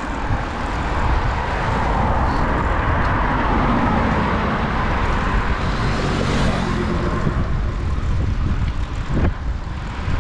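Main-road traffic going by: cars passing one after another, with a motorbike engine passing in the middle. A single sharp knock near the end.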